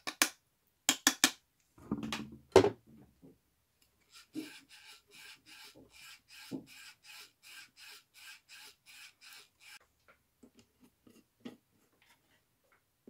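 Brush scrubbing the oxidised L-pad attenuator of a JBL studio monitor in quick back-and-forth strokes, about three a second, for several seconds. Before it come a few sharp clicks and one loud knock as the part is handled.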